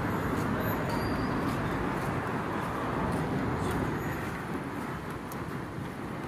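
Steady city street traffic noise from cars on a nearby road, easing off slightly in the last couple of seconds.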